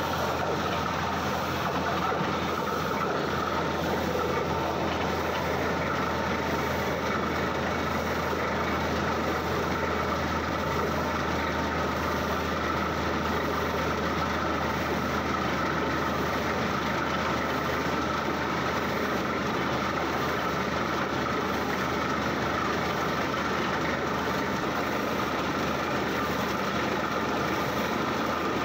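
Borewell drilling rig running steadily with a constant low drone. The drill rod turns in the hole while air blows rock dust up out of the bore, giving an even rushing noise over the engine.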